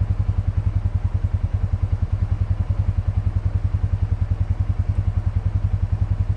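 Polaris Ranger 570 side-by-side's single-cylinder engine idling with a steady, even low throb of about ten pulses a second.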